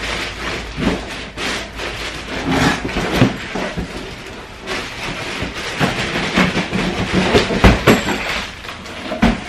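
Crinkling and rustling of a clear plastic bag and cardboard box as a plastic-wrapped motorcycle fuel tank is pulled out of its shipping carton, with several sharp knocks along the way.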